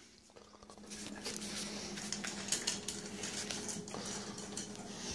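Cats eating dry kibble from bowls on a tiled floor: many small scattered crunches and clicks of food against the dishes, over a faint steady hum.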